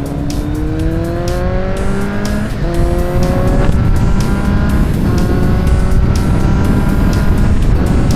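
Kawasaki Z800's inline-four engine accelerating hard, its pitch climbing through each gear and dropping at upshifts about two and a half and five seconds in and again near the end, with wind rushing over the helmet microphone.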